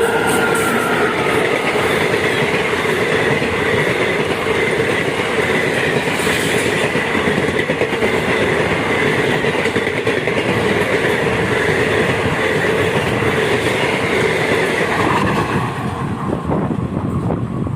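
Passenger train passing at speed close by, its coaches rolling loud and steady with a clickety-clack over the rails and a held ringing tone from the wheels; about fifteen seconds in it eases off into separate clicks as the last coaches pass.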